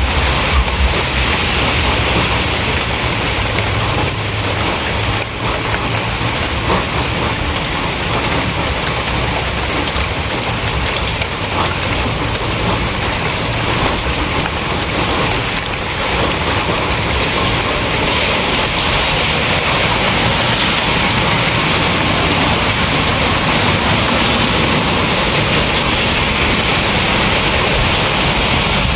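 Steady rain falling, a dense, even hiss that does not let up.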